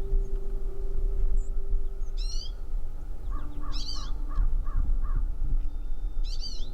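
Bird calls: three harsh, wavering high calls about two seconds apart, with a run of six short, lower notes in the middle, over a steady low rumble.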